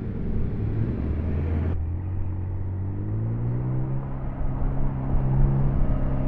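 A car engine running, its pitch rising about two to three seconds in as it revs up, then holding steady.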